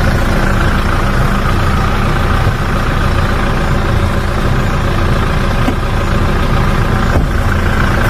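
Car engine idling steadily with the air conditioning switched on, a constant low hum that holds its pitch throughout.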